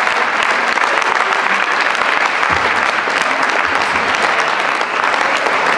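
Banquet audience applauding steadily: many people clapping together.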